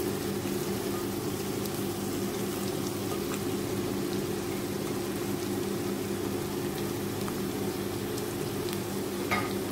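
Sliced onions and green chillies frying in hot coconut oil in an iron kadai: a steady sizzle with a low steady hum under it. A short utensil knock comes near the end.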